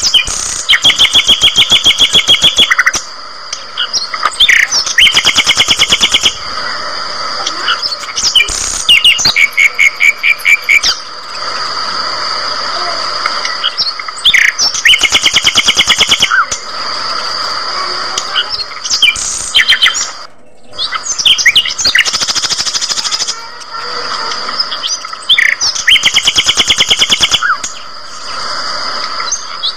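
A flock of budgerigars chirping and chattering, with short bursts of rapid repeated chirps every few seconds over a steady high twittering.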